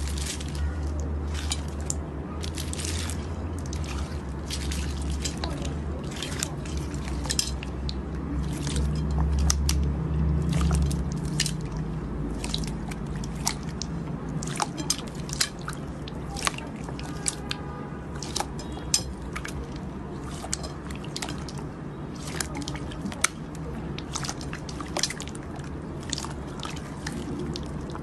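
Slime being squished and worked by hand, giving an irregular run of sticky clicks and pops. A low steady hum runs underneath for the first eleven seconds or so, then stops.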